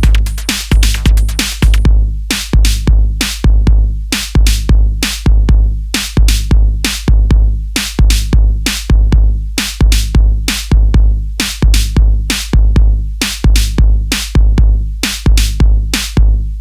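Electro track with a drum-machine beat of dense, regular hits over a deep bass line; a hissing high layer drops out about two seconds in, leaving the bare beat and bass.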